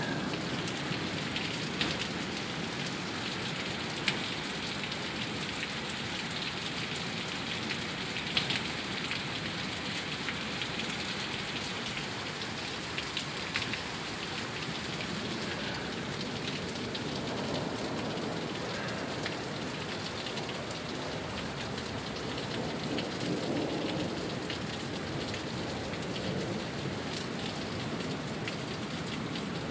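Heavy rain pouring down steadily, with occasional sharper drop hits. A low rumble of thunder swells in the second half.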